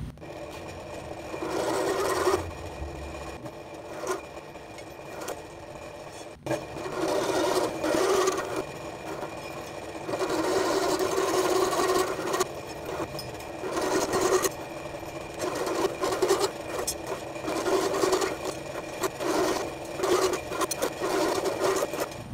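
A CO-Z step drill bit turning in a vertical milling machine's spindle, cutting into punched holes in a steel strip to open them out to 3/4 inch. The spindle hums steadily throughout. The cutting noise rises several times as each hole is drilled, with quieter gaps while the strip is moved to the next hole.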